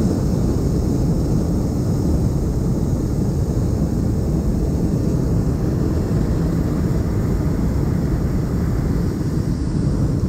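Hot air balloon's propane burner firing in one long, steady blast, heard close up from the basket.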